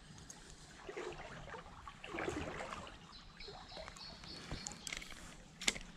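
Small stream trickling while a Shimano Nexave spinning reel is cranked to retrieve a spoon lure, with rustling handling noise about one and two seconds in. A high, stepped whistling bird call sounds in the middle, and a sharp click comes near the end.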